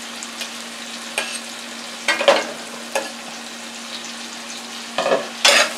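Sliced onions and sweet pepper sizzling steadily in an oiled frying pan, with a metal slotted spoon scraping and knocking against the pan as they are stirred. The clanks are loudest about two seconds in and again near the end.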